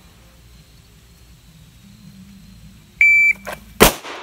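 Shot timer giving a short, steady, high start beep near the end, followed under a second later by a single loud pistol shot fired at the end of a fast draw from an appendix holster.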